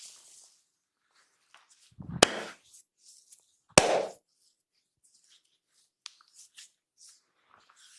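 Two loud, sharp percussive hits from the barber's hands working on the body during a head and body massage, about a second and a half apart, each with a short rough tail, with faint rustling and small clicks between them.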